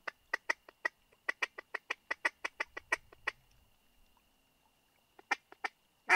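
Duck call blown by a hunter to bring in ducks circling overhead: a quick string of about sixteen sharp quacks over three seconds, then a pause, then a few more quacks near the end, the last ones loudest.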